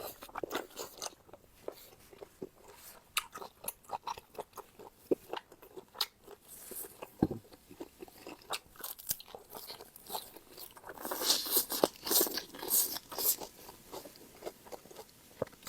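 Close-up chewing and crunching of squid with fresh raw vegetables: a run of short, wet crunches and clicks, with a louder spell of crunching a little past the middle.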